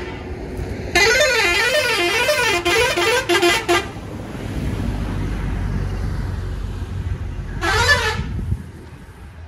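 A truck's warbling horn sounding in bursts, its pitch swinging up and down about twice a second: a long blast of about three seconds early on, then a short one near the end. Between them a heavy engine rumbles, cutting off shortly after the last blast.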